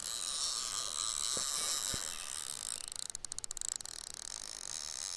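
Fixed-spool reel's drag clicking as a hooked carp strips line off the spool, with a quick run of ticks a little after three seconds in.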